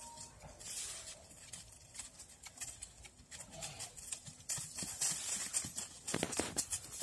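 A donkey's hooves trotting on leaf-covered dirt, a quick irregular run of soft hoofbeats, with a louder brief noise about six seconds in.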